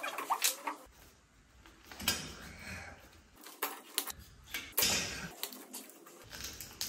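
Irregular clatter of light knocks, clicks and short scrapes.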